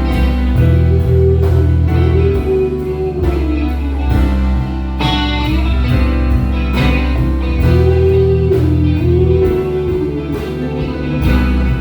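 Live soul-blues band playing an instrumental passage: an electric guitar plays a lead line with bent, gliding notes over bass guitar, drums and keys.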